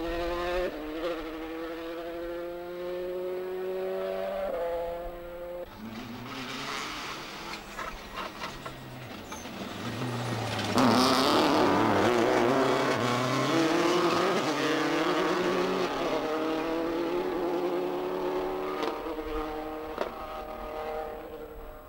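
Rally cars at full throttle: engines climbing in pitch with sharp gear changes. About eleven seconds in a Subaru Impreza slides through a bend close by, the loudest moment, with a rush of tyre and grit noise. Near the end another car is heard accelerating.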